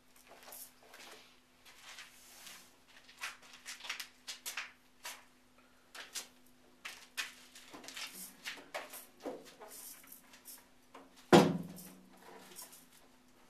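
Handling noises as an acoustic guitar is picked up and settled: scattered rustles, scrapes and clicks, then one loud knock about eleven seconds in that leaves the guitar body ringing briefly. A steady low hum runs underneath.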